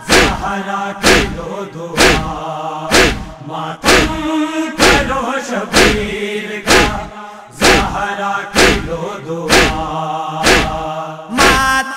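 Noha interlude: a background chorus holds a chanted drone over a steady matam beat, one heavy chest-beat-style strike about every second.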